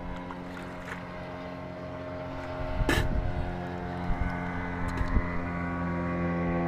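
Boat engine running with a steady hum that grows louder about two and a half seconds in, with a sharp click about three seconds in.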